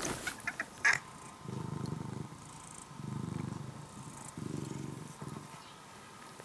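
An orange-and-white domestic cat purring in three low, pulsing stretches of under a second each, one with each breath. A few sharp clicks come in the first second.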